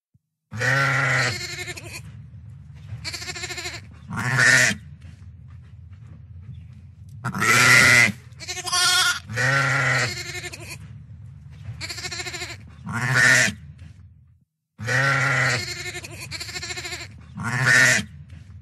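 Barn animals bleating: about nine short, wavering calls over a steady low hum. The sequence breaks off for a moment late on and starts over.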